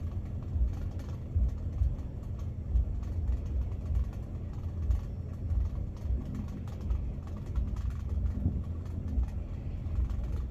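Low, uneven rumble with a steady faint hum running under it.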